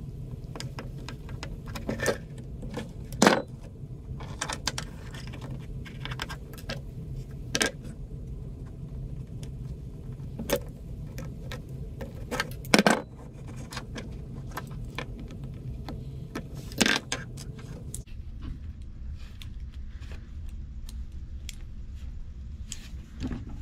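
Metal clinks and taps from a belt buckle and pliers being handled on a workbench: a scatter of sharp clicks with a few louder knocks, over a steady low hum.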